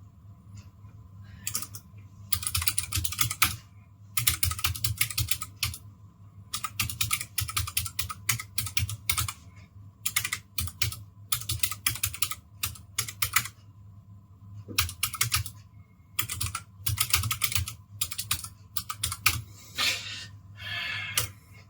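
Typing on a Keychron K1SE low-profile mechanical keyboard with blue optical switches: rapid key clicks in bursts of a second or two, broken by short pauses.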